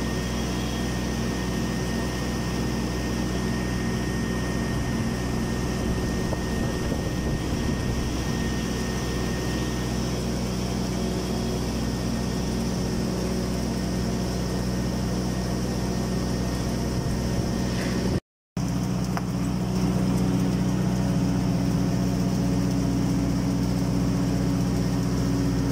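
An engine running steadily at a constant speed, an even low drone, with a brief dropout of all sound about 18 seconds in.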